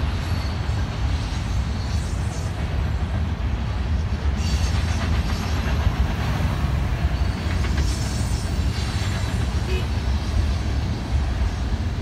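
Union Pacific grain hopper freight train rolling past, a steady low rumble of its cars on the rails.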